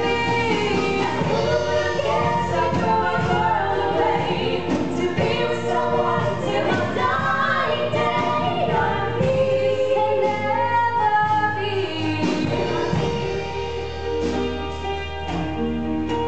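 Two women singing a stage-musical duet over instrumental accompaniment, with a long held low note in the accompaniment near the end.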